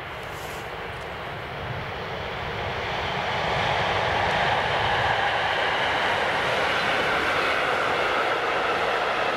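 A train approaching at speed: a rushing noise that swells over the first few seconds and then holds steady and loud as it draws level.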